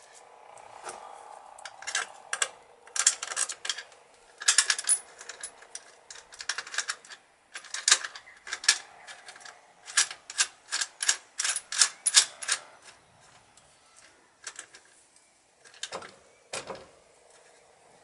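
Bursts of sharp metallic clicks and rattles as the headlight shell and indicator mounting hardware are refitted on a Triumph T140E, in quick runs of several clicks a second through the middle, then a couple of duller knocks near the end.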